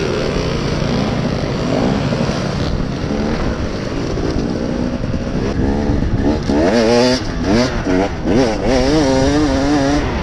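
Dirt bike engine under way on a trail, revving up and down as the throttle is worked, the pitch rising and falling several times in the second half.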